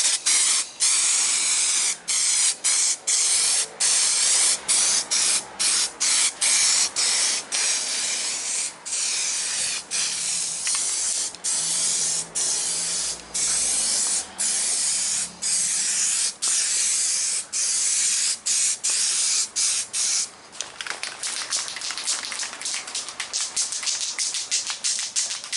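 Aerosol spray can of primer spraying in repeated short bursts with brief gaps between them. For the last few seconds the bursts give way to a rapid rattling.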